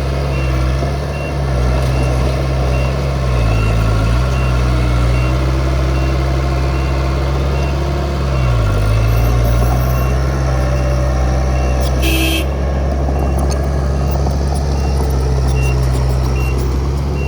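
Heavy diesel engine of earthmoving machinery running, its pitch dipping briefly twice, with a backup alarm sounding a steady series of short beeps. A brief hiss about twelve seconds in.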